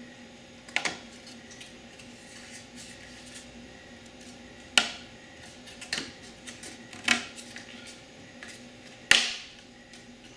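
Thin wooden panels clicking and knocking as they are handled and pressed together into a box: five or so sharp taps at irregular intervals, the loudest near the end, with light handling noise between.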